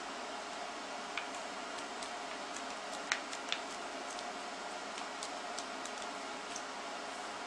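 Sheet of origami paper being handled and folded: scattered light, crisp clicks and crinkles, two sharper ones a little before the middle, over a steady background hiss.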